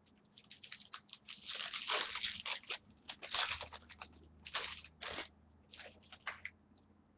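A trading card pack's wrapper being torn open and crinkled by hand: a run of crackling rustles, loudest in the middle, dying away about six and a half seconds in.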